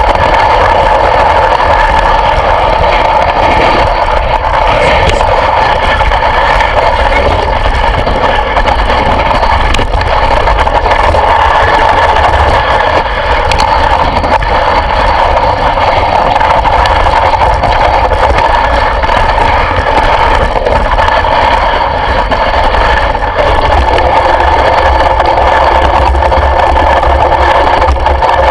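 An engine running steadily at an even speed, a loud continuous drone with no change in pitch.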